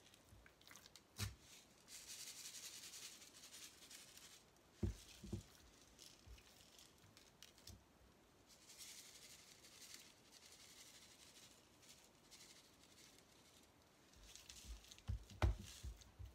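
Faint hiss of coarse sea salt shaken from a plastic shaker onto raw venison backstrap, in two spells of a few seconds each. A few soft thumps come from a hand patting the salt into the meat, the loudest near the end.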